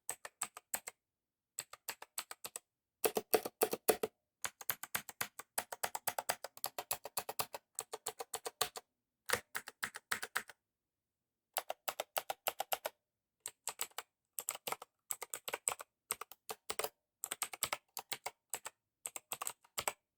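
Typing on a Gamdias Hermes E2 TKL mechanical keyboard with Gamdias-certified blue clicky switches: rapid runs of sharp clicks in bursts of a second or two, broken by short pauses.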